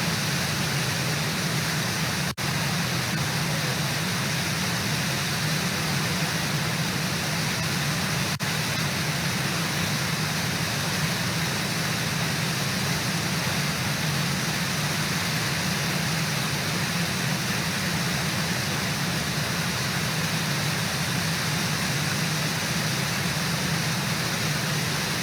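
Steady rushing of the Brooks Falls waterfall and river, with no distinct events. The sound drops out briefly twice, about two and eight seconds in.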